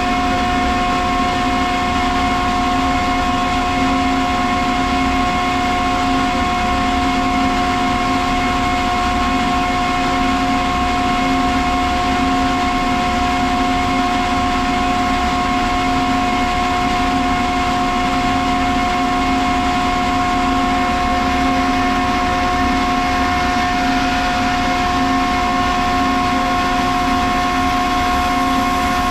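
Ingersoll Rand SSR-EPE50 50 hp rotary screw air compressor running, a loud, even hum with a steady whine over it.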